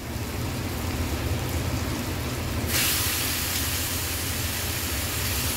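Raw minced chicken sizzling in hot oil as it is added to fried onion and tomato in a metal kadai. The hiss grows louder about two and a half seconds in.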